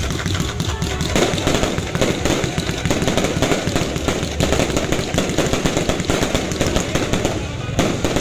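Fireworks going off in a dense, rapid barrage of cracks and bangs, like a string of firecrackers or a machine gun.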